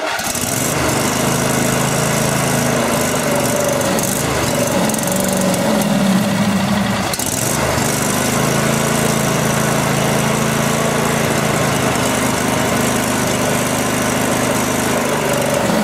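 The used replacement engine in a John Deere LX288 lawn tractor running steadily, freshly swapped in and hooked up.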